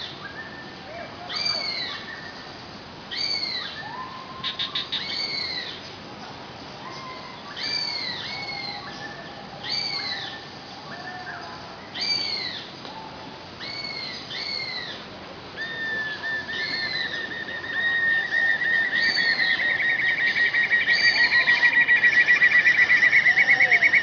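Black-and-yellow broadbill singing: short arched whistled notes repeated every second or two, then, from about two-thirds of the way in, a long rapid trill that builds steadily in loudness.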